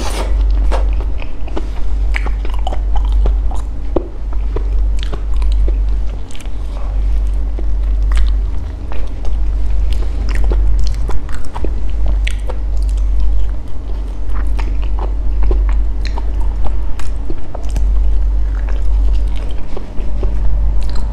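Close-miked wet chewing and lip-smacking of soft durian flesh and coconut-sauced sticky rice, with many small sticky clicks, over a steady low hum.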